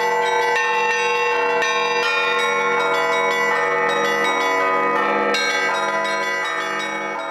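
Russian Orthodox church bells rung by hand in a festive Easter peal: many bells of different pitches struck in a quick, dense rhythm, their tones ringing over one another. The peal fades near the end.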